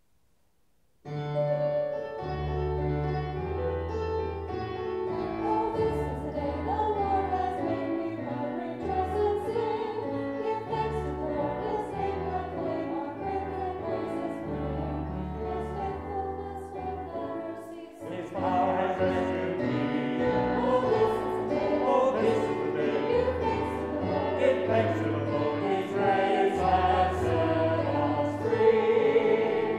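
Small church choir singing a hymn with keyboard accompaniment. The music starts about a second in and grows fuller about eighteen seconds in.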